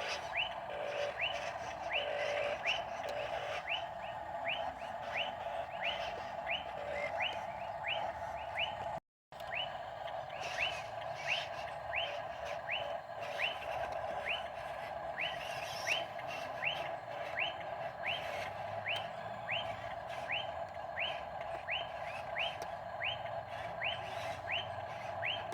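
A bird calling in a long, regular series of short chirps, about two a second, over a steady mid-pitched hum. The sound cuts out for a moment about nine seconds in.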